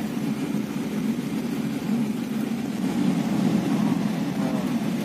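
Steady engine and road noise heard from inside the cabin of a moving bus.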